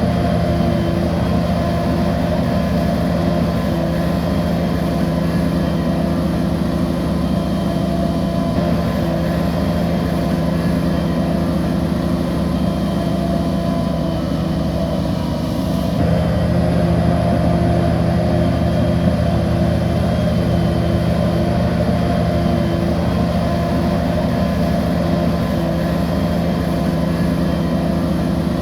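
Bulldozer's diesel engine running steadily under load, with a small shift in its sound about halfway through.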